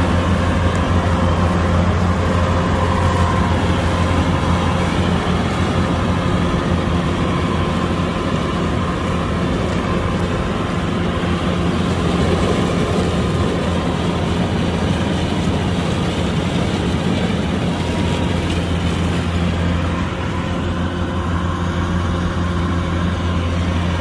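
Kubota DC-105X combine harvester's diesel engine and threshing machinery running steadily while harvesting rice: a continuous deep hum with a steady mechanical whir over it.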